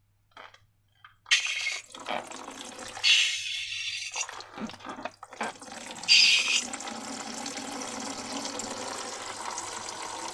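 Liquid pouring: short splashes at first, then a steady stream from about six seconds in.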